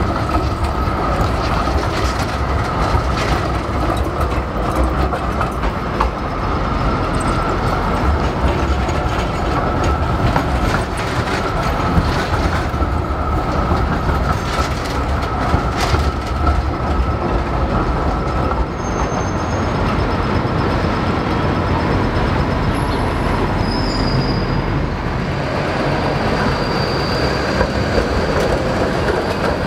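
Electric city trams passing through a busy street intersection, their steel wheels rumbling and knocking over the rail joints, with road traffic alongside. A steady high whine runs through the first two-thirds and fades out after about 20 seconds.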